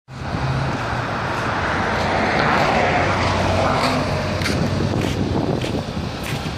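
Road traffic: a vehicle passes by, its noise swelling and fading over a couple of seconds midway, over a steady low hum.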